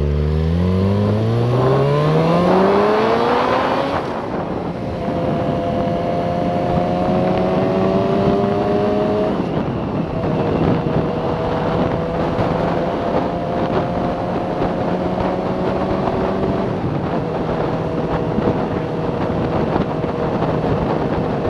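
Yamaha FZ6R's 600 cc inline-four engine pulling away under acceleration: the revs rise for about four seconds, drop at an upshift, climb gently again, drop at a second upshift near ten seconds in, then hold nearly steady at cruising speed, over a steady rush of noise.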